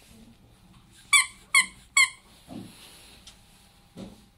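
Squeaker inside a plush dog toy squeezed by hand, giving three short, loud, high squeaks about half a second apart, followed by two softer low thuds.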